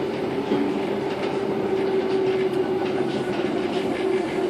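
Steady running noise inside a moving electric passenger train carriage: a constant hum with the wheels clicking faintly over the track.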